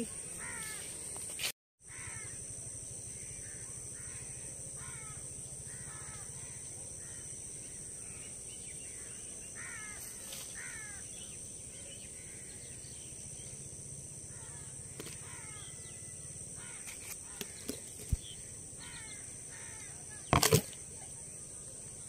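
Birds calling over and over outdoors, short calls a second or less apart, over a steady high-pitched whine. A single sharp knock near the end.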